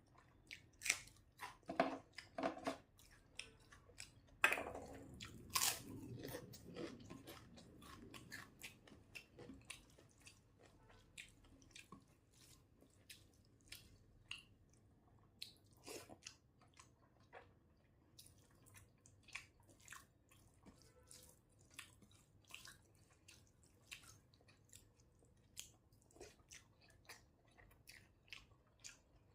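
Close-miked chewing and biting of a Bengali rice meal: short wet mouth clicks, with a run of louder bites in the first seven seconds, then lighter chewing clicks every second or so.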